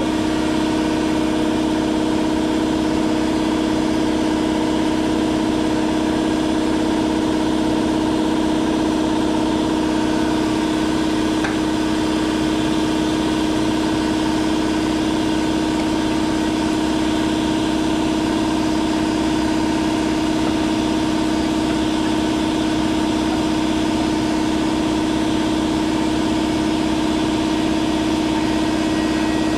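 Power drill running at a steady speed, a constant loud hum that holds one pitch throughout, as the bit works at drilling out a broken cobalt drill bit stuck in a bolt.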